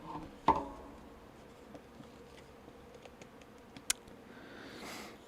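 Quiet room with a faint steady hum, broken by a short murmured vocal sound about half a second in, a single sharp click near four seconds in, like a computer mouse, and a soft breath near the end.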